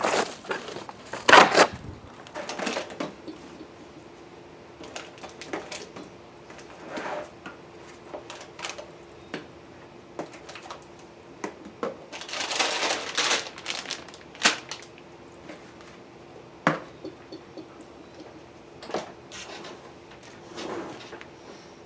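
Irregular clinks, taps and scraping of kitchen items and containers being handled and set down, with a few louder rustling clatters. A faint steady hum runs underneath.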